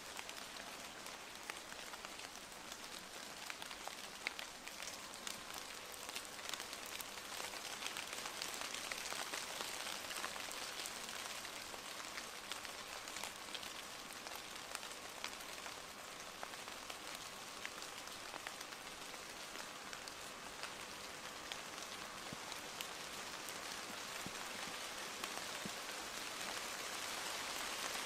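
Steady light rain, with many small drops ticking. A faint steady hum sits underneath from the distant approaching diesel locomotive, and the sound grows a little louder near the end.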